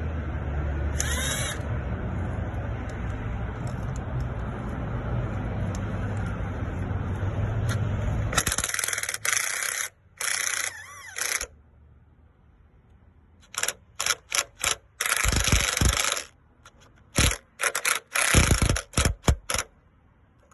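Snap-on cordless ratchet run in repeated short bursts, tightening bolts, starting about halfway in and clustering toward the end. Before it there is a steady low hum.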